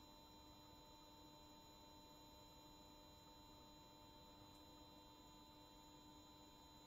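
Near silence: a faint steady electrical hum made of a few constant tones.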